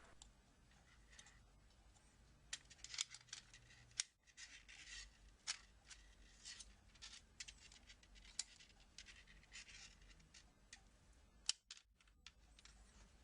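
Faint, scattered clicks and scrapes of a metal hard-drive caddy bracket, a 2.5-inch SATA drive and its cable being handled and fitted together.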